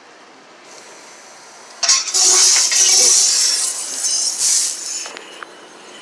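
Self-service car wash high-pressure wand spraying water: a loud, even hiss that starts suddenly about two seconds in and eases off near the end.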